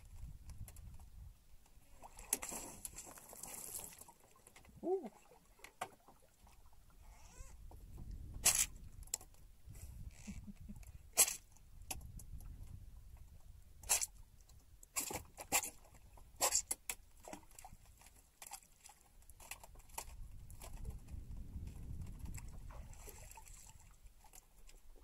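Scattered sharp clicks and knocks from handling the fishing line and a freshly caught squid in a small boat, over a low steady rumble. The clicks come thickest in the middle stretch.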